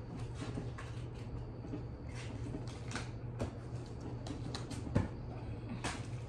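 Scattered light rustles and small clicks from hands handling small objects, with one sharper knock about five seconds in, over a steady low hum.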